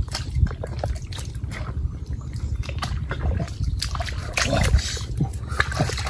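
Bare feet squelching and splashing through shallow water and soft mangrove mud, irregular wet sucking and slapping steps, over a steady low rumble.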